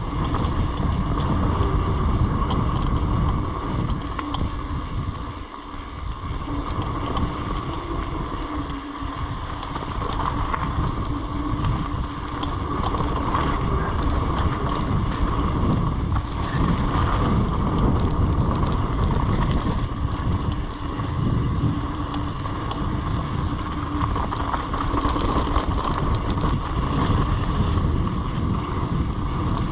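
Mountain bike ride down a dirt trail: wind buffeting the camera microphone over the noise of the bike rolling over the ground, with a steady hum underneath.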